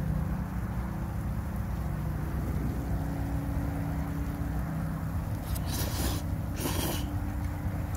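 Two loud slurps of thick udon noodles sucked up in long pulls, about five and a half and six and a half seconds in, over a steady low hum.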